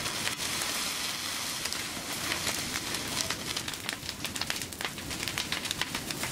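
Wooden annex burning fully ablaze: the fire crackles steadily with many sharp, irregular pops and snaps.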